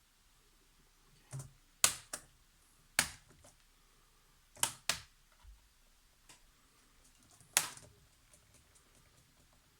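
Sharp, separate clicks and taps, about seven at uneven intervals, of a screwdriver and small screws against a laptop's plastic case as the screws are put back.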